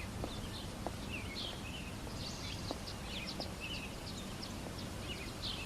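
Small birds chirping irregularly over a steady low background hum.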